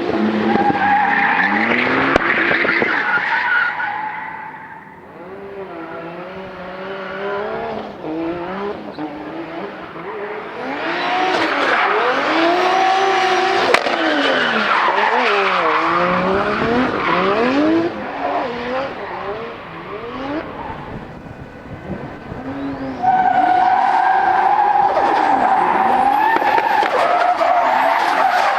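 Drift cars sliding: engines revving up and down hard while the tyres squeal and skid. The sound fades around five seconds in and again near twenty seconds, then a steady, loud tyre squeal sets in suddenly about 23 seconds in.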